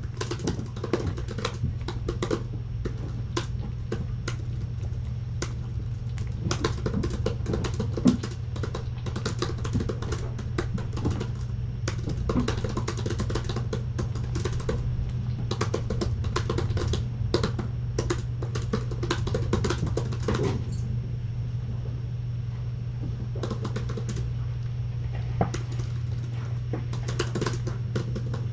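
Typing on an Apple MacBook laptop keyboard: runs of quick key clicks, with a pause of about two seconds roughly three-quarters of the way through, over a steady low hum.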